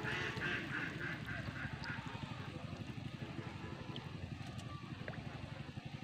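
Ducks quacking in a quick series of calls over about the first two seconds, over a steady low rumble.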